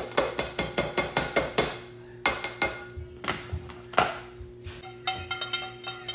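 Plastic colander tapped rapidly against the rim of a metal rice-cooker pot to knock soaked glutinous rice into it, then scattered knocks and ringing metal clinks as a frying pan and chopsticks scrape stir-fried Chinese sausage into the pot.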